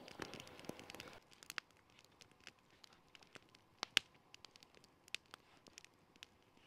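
Wood campfire crackling faintly, with scattered small clicks and pops and one sharper pop about four seconds in.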